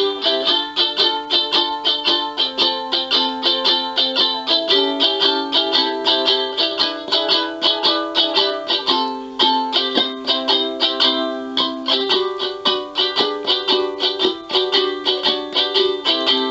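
Strumbox kit ukulele with a cardboard body, played unplugged: quick, rhythmic chord strumming, the chord changing every second or two.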